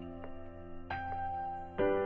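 Soft, slow background music: sustained chords, with new notes struck a few times.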